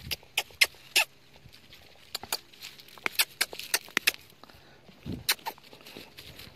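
Dry grass stalks and stems crackling with irregular sharp clicks, about a dozen, as a hand pulls and parts them at the ground.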